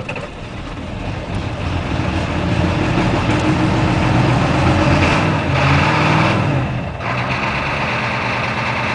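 1987 Ford F250's 6.9 L International Harvester (Navistar) diesel V8 just fired on a cold start at two below zero, on glow plugs alone without a block heater, heard from inside the cab. The engine note builds over the first few seconds, runs louder around five to six seconds in, then drops about seven seconds in to a steady idle.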